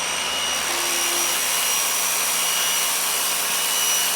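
Ryobi RY142022 2000 psi electric pressure washer running steadily, its 13-amp electric motor giving a constant high whine over a loud hiss of water spraying through the turbo nozzle.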